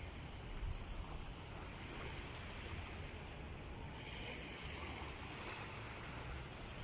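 Wind rumbling on the microphone over a steady wash of sea water.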